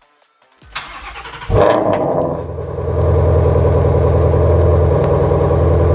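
Shelby Mustang V8 starting up: the starter cranks briefly, the engine catches with a sudden loud rev flare about a second and a half in, then settles into a loud, steady idle through the exhaust.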